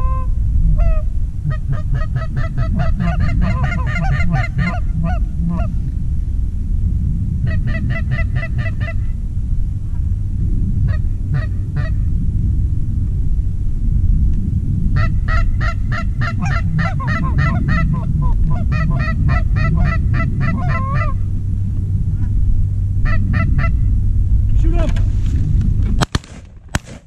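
Canada goose calling: rapid runs of honks and clucks, in clusters a few seconds long, over a steady low rumble of wind on the microphone. Just after 26 seconds a few sharp cracks as shotguns open up.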